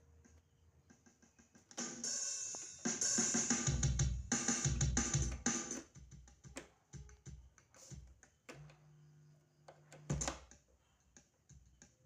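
Yamaha MODX synthesizer playing drum-kit sounds (kick, snare, hi-hat, cymbal) with other instrument notes, loud and busy for a few seconds, then sparser notes and hits, including one held low note. It is being played as a sound test of a faulty output, where one channel is disturbed.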